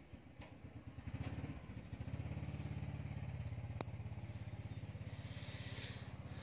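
An engine running steadily with a fast, even pulse. It swells about a second in and eases near the end. One sharp click comes about halfway through.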